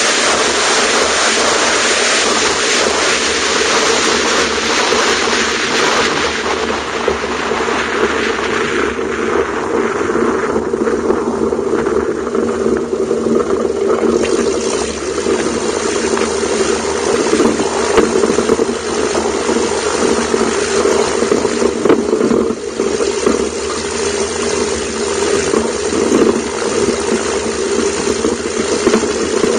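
Light aircraft piston engine and propeller of a Zenith STOL CH750 idling as the plane taxis on a grass strip, with a steady engine note. A hiss of air and rolling fades out about halfway through as the plane slows.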